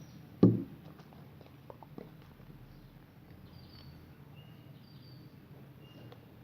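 A single sharp thump about half a second in, followed by a few light clicks, with faint short high-pitched chirps now and then.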